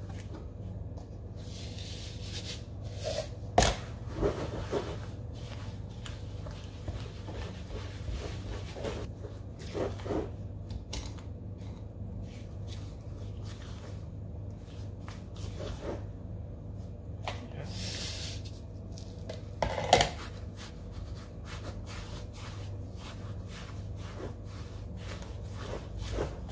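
Scattered clicks, knocks and scrapes of containers and utensils being handled while mixing a cosmetic scrub, with the sharpest knocks about three and a half seconds and twenty seconds in, over a steady low hum.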